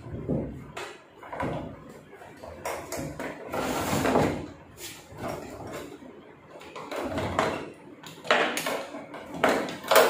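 Metal parts of a top-load washing machine's brake and gearbox assembly clattering and knocking against the plastic tub as the mounting plate is handled and lowered onto the shaft. The knocks come in scattered bursts, loudest about four seconds in and again near the end.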